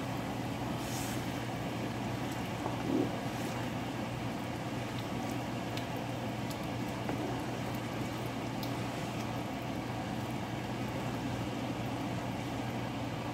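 Green chili coconut milk sauce with chicken simmering in a stainless steel pan while a wooden spoon stirs it, with a few faint scrapes and knocks. A steady low hum lies under it.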